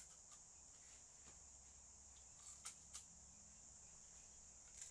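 Faint, steady high-pitched insect drone, with a few short sharp cracks of sugar cane being stripped and chewed, two of them close together a little under three seconds in.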